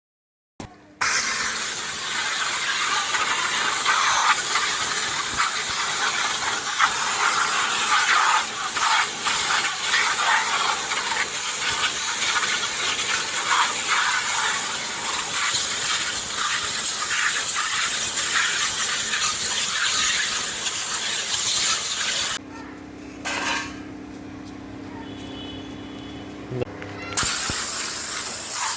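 High-pressure wet sandblasting jet, a pressure washer spraying water and sand, hissing steadily against metal plate as it strips paint. About 22 seconds in the spray stops for some five seconds, leaving a lower steady hum, then starts again.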